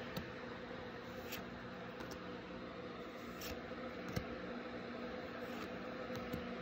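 Faint, scattered soft clicks and rustles of Pokémon trading cards being handled and flipped through, over a steady low hum.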